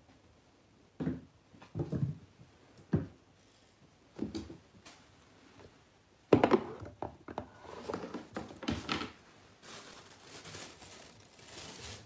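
A kitten playing on a wooden floor: scattered dull thumps and pattering as it pounces on a cat-wand toy, then a loud knock about six seconds in, followed by the crinkle and rustle of thin plastic bags being knocked about.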